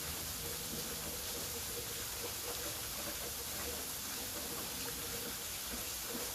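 Waterfall rushing steadily, an even roar of falling water.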